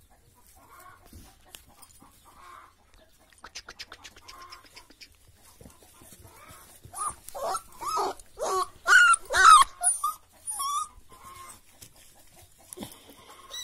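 Puppies whining and yelping: a quiet start with faint scuffling, then about seven seconds in a run of short, high cries that rise and fall, loudest a little past the middle.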